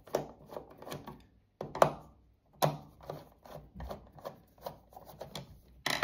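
Screwdriver turning and working loose the terminal screws of a plastic 3-pin wall socket faceplate to free its cables: a run of small metallic clicks and scrapes, with two sharper knocks about two and three seconds in.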